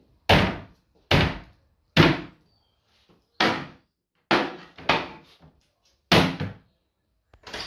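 Heavy blows hitting a kitchen as it is smashed up: about eight hard bangs, roughly one a second, each fading quickly.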